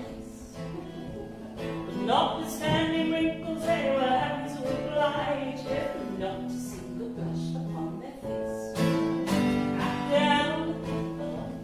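A song: a voice singing with instrumental backing.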